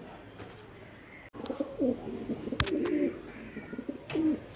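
Domestic pigeons cooing in repeated low, bending calls, starting about a second and a half in, with two sharp clicks among them.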